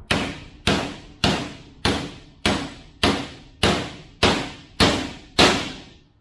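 Hammer striking a machined metal spacer ten times in a steady rhythm, a little under two blows a second, each with a short metallic ring. It is driving a press-fit bearing down onto a Can-Am SmartLok front differential carrier. The last blow is the loudest.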